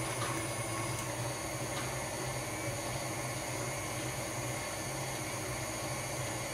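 Electric stand mixer running steadily, its beater creaming butter and eggs: an even motor hum with a hiss over it.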